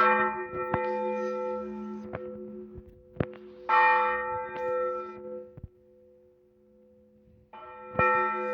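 Blagovest on a large Russian Orthodox church bell: three single strokes about four seconds apart, each ringing on with a steady hum that slowly fades before the next stroke.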